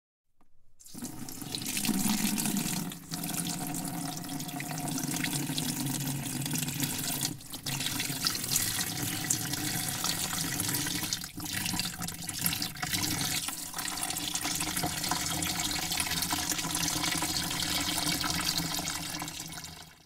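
Waterfall pouring: a steady rush of falling water that fades in within the first second, with a few brief drops in level.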